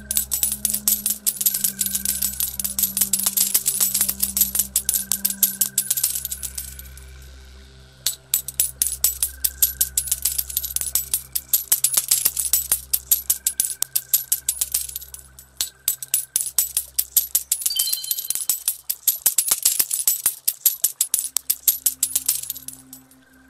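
Coins pouring and clinking in three long cascades, each swelling and then thinning out, over a slow music bed of low sustained notes.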